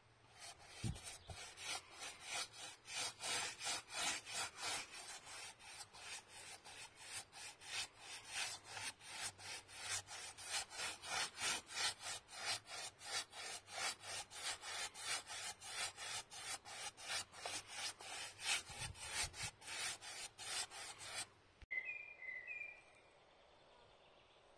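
Bristle paintbrush scrubbing back and forth over rough wooden siding boards as it lays on paint, a quick even rhythm of about three strokes a second. The brushing stops about three seconds before the end, and a bird chirps briefly.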